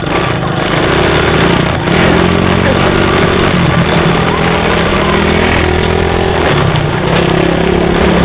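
Motor vehicle engine running hard, its pitch rising and falling as the throttle changes.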